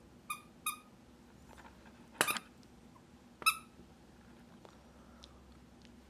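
Young puppy giving short, high-pitched yips, four in all: two small ones near the start, then a louder, harsher one past two seconds and another loud one about three and a half seconds in.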